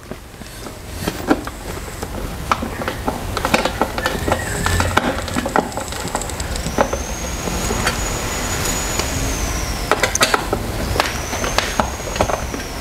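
Scattered clicks and light knocks of metal-framed chair parts and plastic wrapping being handled, over a steady low rumble. Twice, in the second half, a high thin whistling tone rises, holds for a few seconds and falls away.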